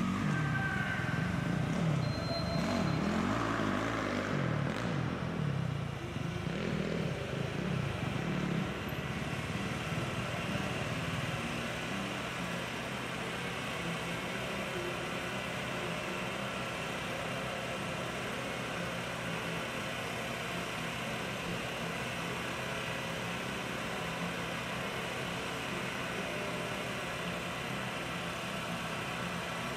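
Dirt bike engine revving, its pitch rising and falling over the first ten seconds or so, then settling into a steady idle.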